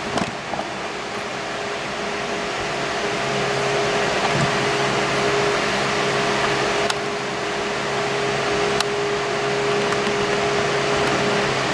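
Steady whir and hum of a fan-like machine running, with two faint clicks in the second half.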